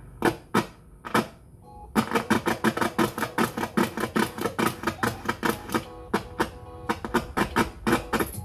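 Sharp GF-777 boombox's switch mechanism worked by hand, clicking: three separate clicks, then a quick even run of about five or six clicks a second.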